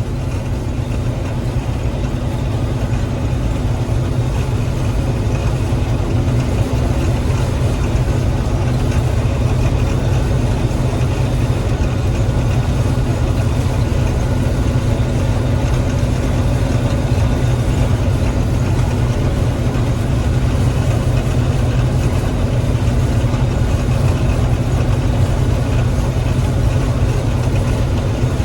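Gleaner M3 combine running steadily while harvesting wheat: an even, unbroken engine and machinery drone.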